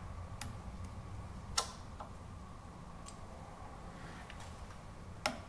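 A few light metallic clicks and ticks as a rotary table on a milling machine is turned by hand, the sharpest about one and a half seconds in and another near the end, over a faint steady hum.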